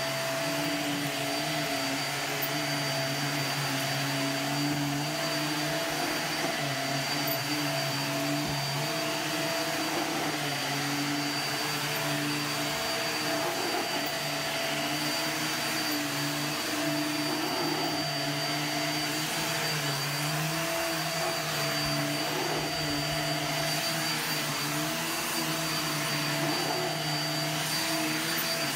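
Bagless upright vacuum cleaner running steadily while being pushed over carpet, a continuous motor hum with a thin high whine; its lower pitch wavers slightly as the head moves back and forth.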